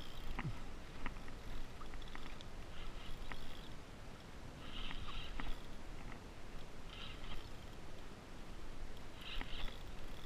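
Water splashing against and around a kayak in short bursts about every two seconds, over a steady wash of water and wind, with a few light clicks.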